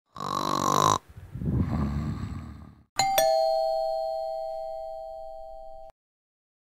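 A two-note ding-dong doorbell chime, the two strikes a fraction of a second apart, ringing on for nearly three seconds before it cuts off abruptly. Before the chime there is a short pitched sound, then a brief noise.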